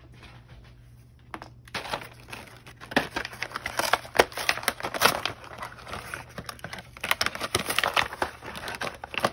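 Plastic blister pack of Sharpie markers crinkling and crackling as it is handled, starting about two seconds in, in a dense run of irregular crackles.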